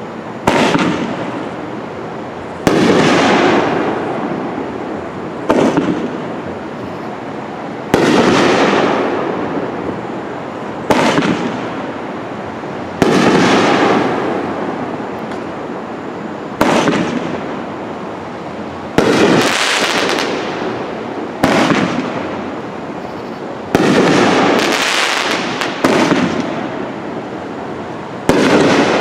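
Phantom Fireworks 'Da Bomb' 500-gram nine-shot repeater cake firing: a loud bang about every two to three seconds, each trailing off over a couple of seconds.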